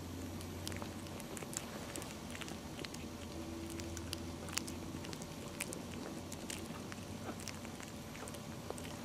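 Terrier puppies eating wet food off a plate: irregular small licking, smacking and chewing clicks, over a steady low hum.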